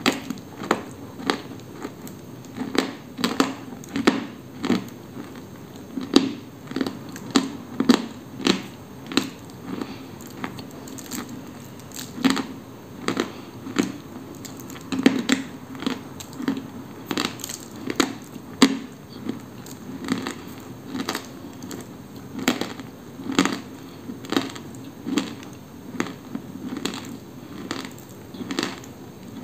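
A dry chunk of Koksol edible clay being bitten and chewed: a steady run of sharp, dry crunches, a bit under two a second.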